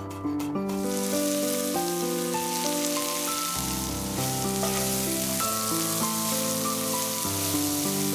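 Chopped leek and garlic sizzling in hot oil in a cast iron skillet as a spatula stirs them, a steady frying hiss that sets in about a second in, after a few knife taps on a wooden board. Soft piano music plays underneath.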